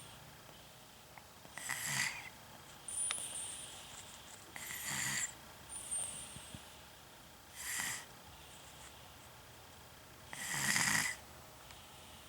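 Someone snoring in their sleep: four louder snores about three seconds apart, with faint high whistling breaths between some of them.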